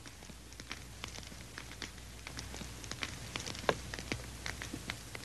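Wood fire crackling in a stone fireplace: irregular small pops and snaps, several a second, with one louder snap a little past the middle.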